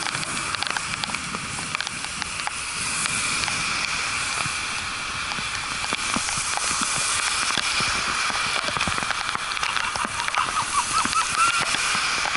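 Steady hiss of heavy rain and bicycle tyres spraying on a waterlogged road, with many scattered sharp ticks.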